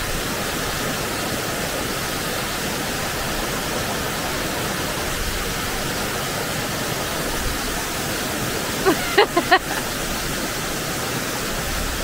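Small waterfall's falling water rushing steadily, heard up close. A person's voice rises above it briefly, about nine seconds in.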